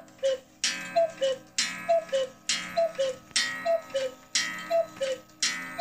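Black Forest cuckoo clock calling the hour: the two-note 'cuck-oo' from its bellows pipes, high then lower, repeated about once a second, with a ringing bell strike at each call.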